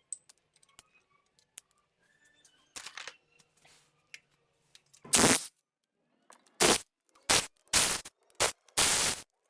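A power wrench undoing the cylinder head bolts on a Ford Boss V8 in short bursts. A longer burst comes about halfway through, then about five quick ones near the end, with faint clicks of handling the tool in between.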